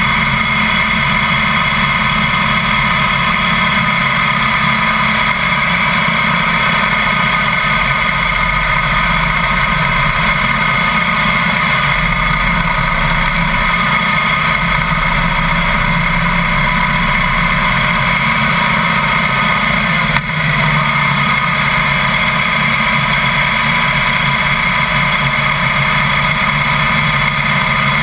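Harley-Davidson Heritage Softail's V-twin engine running at steady cruising speed, heard from a camera mounted low by the front wheel, under a steady haze of wind and road noise. The level dips briefly about twenty seconds in.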